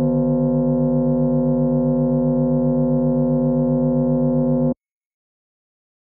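Synthesized sustained model of the 19-tonne Festive (Prazdnichny) bell of the Novgorod Sophia belfry, recast in 1659: its partials held together as a steady chord of pure tones, with a fast wobbling beat in a low note. It cuts off abruptly near the end.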